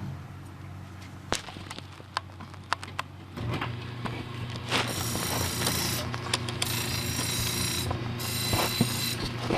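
Small clicks and knocks, then a motor switches on about three seconds in and runs with a steady hum. From about five seconds a high hissing grind is laid over it, breaking off twice: a tool edge being sharpened against a powered wheel or belt.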